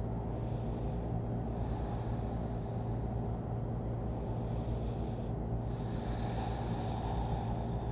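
A person breathing slowly, a few long breaths in and out each lasting a couple of seconds, over a steady low hum.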